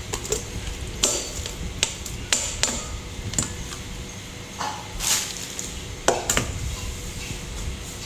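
Kitchen utensils knocking and clinking against cookware, about eight sharp strikes at uneven intervals, one about five seconds in ringing on a little longer, over a steady low background hum.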